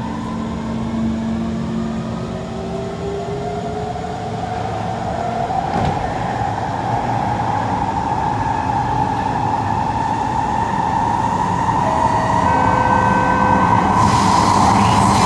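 Kawasaki C151 metro train's traction motors whining and rising in pitch as the train gathers speed, heard inside the carriage in the tunnel. Rumbling running noise grows steadily louder, and a hiss of wheel-on-rail noise comes in near the end.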